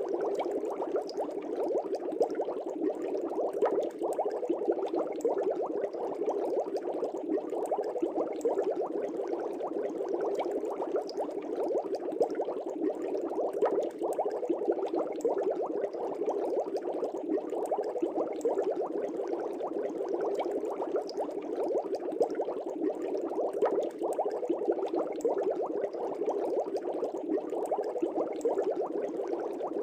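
Steady, dense bubbling of air bubbles rising through aquarium water, as from an air stone.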